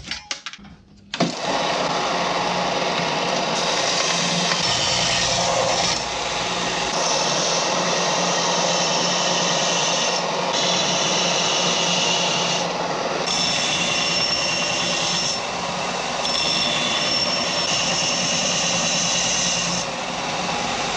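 Ryobi bench belt-and-disc sander running with the steel edge of an axe head held against it, grinding the edge straight and re-beveling it. It starts about a second in and runs steadily, with a few small jumps in level.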